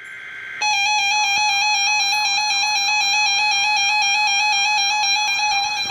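Electronic Emergency Alert System alert tone: a steady high-pitched tone with a quick falling chirp repeating about three times a second, starting sharply just over half a second in after a faint lead-in.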